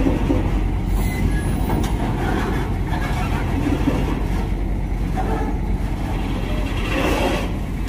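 Steady low rumble of heavy diesel engines running.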